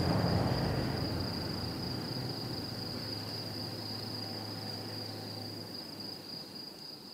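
Insects chirring in one steady high tone, over a low hum that stops near the end; the whole sound fades out.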